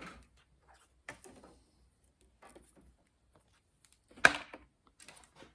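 Copper wire and its stripped insulation casing being handled, with scattered light clicks and rustles and one sharp knock about four seconds in.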